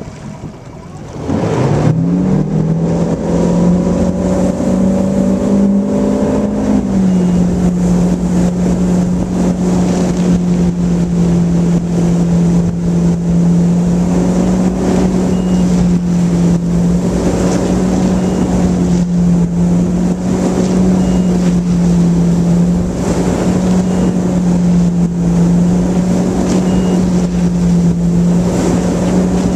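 Ski boat's inboard engine opening up hard from idle to pull a water skier out of the water, its pitch climbing quickly about a second and a half in. The pitch eases down a little about seven seconds in and then holds steady at towing speed.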